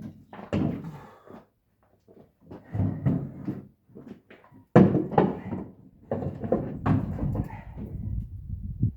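Heavy clunks, thumps and scraping as a loose automatic transmission is manhandled and set onto a pickup's bed, the hardest knock about five seconds in.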